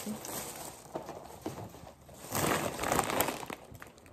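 Plastic shopping bag rustling and crinkling as groceries are pulled out of it, loudest around two and a half to three seconds in.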